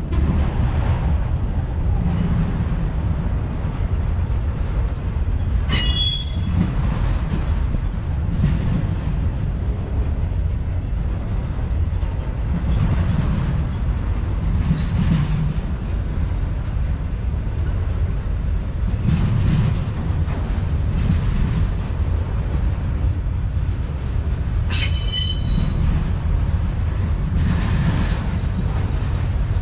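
Autorack freight cars rolling past at close range: a steady low rumble of steel wheels on rail that swells and eases as the cars go by. Two brief high-pitched squeals come through, about six seconds in and again near 25 seconds.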